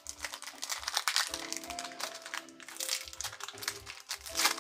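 Foil wrapper of a Pokémon booster pack crinkling as it is handled and opened, over background music with a steady beat.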